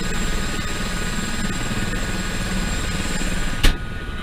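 Helicopter's turbine and rotor running on the helipad, heard from inside the cabin: a steady drone with a throbbing low end and a thin high whine. About three and a half seconds in there is a sharp click, after which the high hiss drops away.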